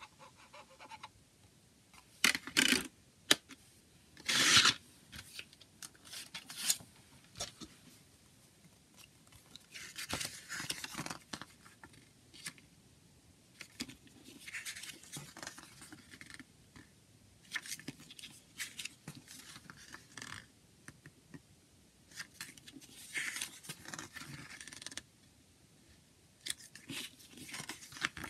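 Hands handling a CD and its plastic jewel case, then turning the pages of a paper CD booklet: scattered rustles, scrapes and sharp clicks, loudest a few seconds in.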